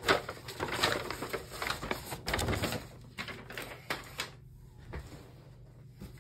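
Sheet of paper (a large kit instruction sheet) rustling and crinkling as it is handled and folded away, dense and irregular for about four seconds, then only a few faint light ticks.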